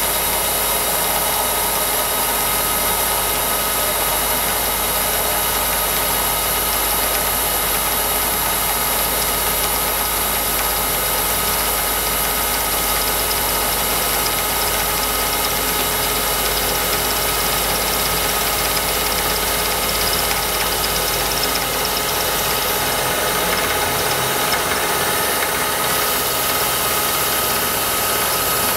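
BF45 CNC milling machine steadily milling a steel plate with a small end mill, the spindle and cut making a steady mechanical noise with a high whine. The end mill seems a little dull.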